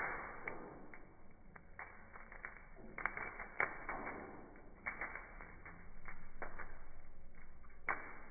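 Hot charcoal tumbling out of a metal chimney starter into a kettle grill: an irregular run of clinks and taps as the coals drop onto the grate, with a few louder knocks.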